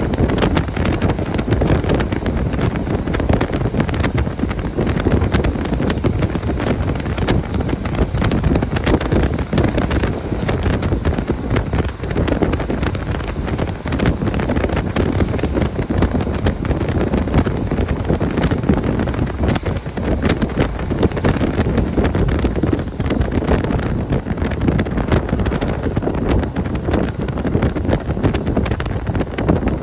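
KiHa 40 diesel railcar running at a steady speed, heard from on board: a continuous low rumble of engine and wheels with faint clicks throughout.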